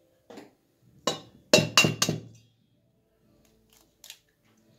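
An egg rapped against the rim of a stainless-steel mixing bowl to crack it: a light knock, then a quick run of four or five sharp clinks over about a second, with a couple of faint ticks near the end.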